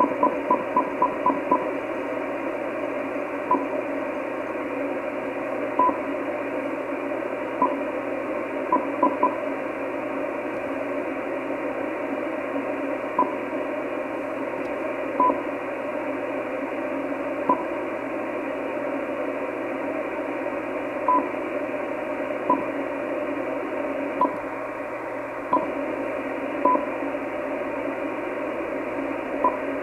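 Icom IC-756 Pro III transceiver playing a steady hiss of receiver band noise through its speaker, with short high beeps from its front-panel keys as its menus are stepped through: a quick run of about six beeps at the start, then single or paired beeps every few seconds.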